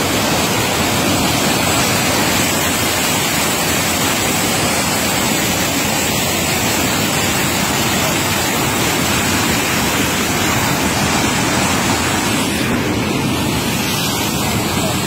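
Muddy water surging out of a concrete outlet into a walled channel: a loud, steady rush with no let-up.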